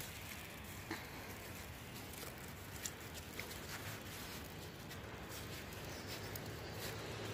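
Faint, steady outdoor ambience of a snowy street: a low rumble and hiss, with a few soft, scattered clicks.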